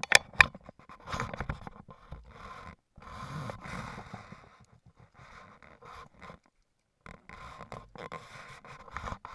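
Hooked brook trout splashing at the surface as it is played in on a fly line, mixed with scraping and rustling of handling close to the microphone. A few sharp splashes or knocks come right at the start, the loudest moment, then uneven stretches of splashing and scraping broken by brief silences.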